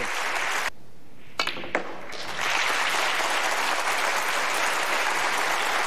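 Audience applauding. The clapping drops away briefly about a second in, with two sharp clicks, then picks up again and carries on steadily.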